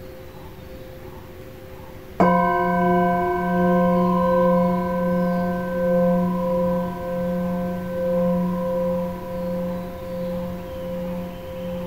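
Himalayan singing bowl, held on the palm, struck once with a felt mallet about two seconds in, then ringing on in a rich chord of overtones that swells and fades in a slow pulse. Before the strike a fainter ring lingers from an earlier stroke.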